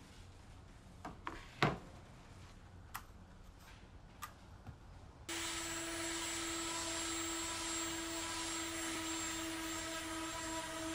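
A few sharp knocks and clicks, the loudest just under two seconds in. Then, about five seconds in, a DeWalt random orbital sander switches on abruptly and runs steadily with a humming whine, sanding the face of a plywood cutting board.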